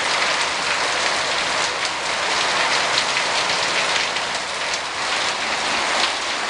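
Heavy rain falling steadily, the hits of many separate drops heard through a dense, even hiss.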